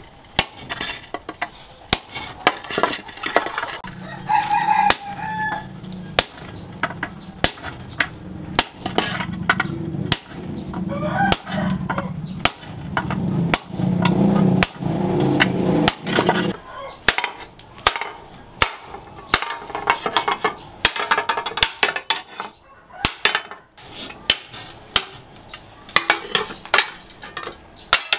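Hammer blows on a hot cut chisel, steel ringing on steel, as it cuts through a red-hot tractor disc on an anvil, in a steady run of about two strikes a second. A rooster crows a few seconds in, and a low hum runs under the blows through the middle.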